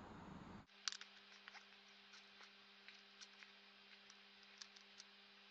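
Near silence: a faint steady hum with a scattering of light clicks and ticks, as of small electronic parts being handled on a circuit board.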